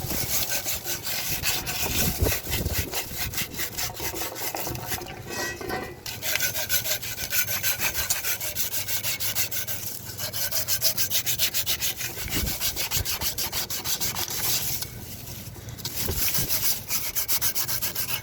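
Rapid back-and-forth rubbing strokes on the freshly cut end of a copper pipe, cleaning it so the compression fitting's ring will slide on, with a brief pause about fifteen seconds in.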